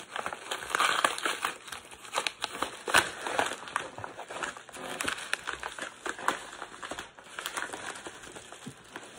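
Kraft-paper mailer crinkling and rustling as it is handled and foam packing is pulled out of it, with irregular crackles throughout.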